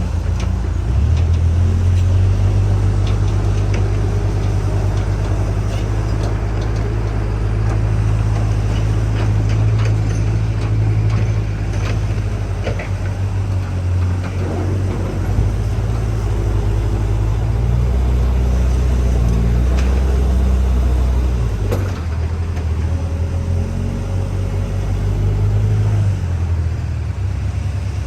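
Backhoe loader's diesel engine running steadily, its note shifting up and down several times as the load or revs change, with a few light knocks.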